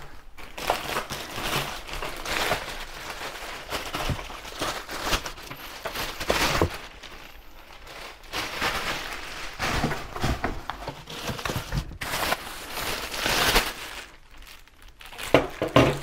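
Clear plastic packaging bags crinkling and rustling in irregular bursts as the parts of a stick vacuum are unwrapped from them.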